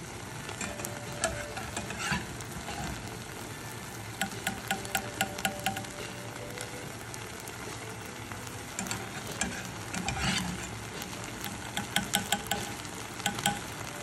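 Rice and fried onion sizzling in a pot as cooked lentils are tipped onto them from a metal mesh strainer. A quick run of sharp clicks about four seconds in, with more near the end, as the strainer knocks against the pot.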